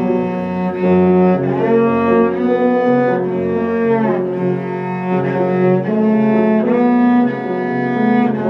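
Cello playing long bowed notes in a sonata, with piano accompaniment.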